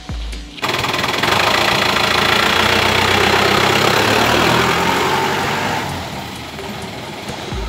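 Open-top jeep's engine running as it drives off, loud at first and growing quieter about six seconds in as the jeep moves away.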